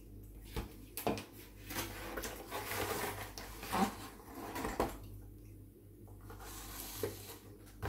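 A cardboard pizza box and a drink can being handled on a kitchen counter: a few knocks in the first two seconds, then a few seconds of cardboard scraping and rustling as the box is closed and lifted, with another knock near the end.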